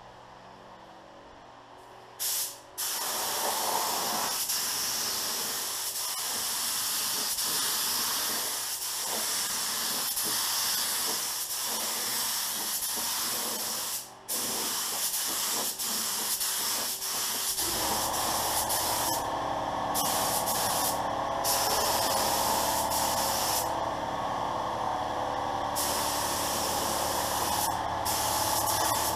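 Pro-Tek 4000 HVLP gravity-feed spray gun hissing as it sprays clear coat. A short burst comes about two seconds in, then long steady trigger pulls with a brief stop about halfway. A low steady rumble joins in about two-thirds of the way through.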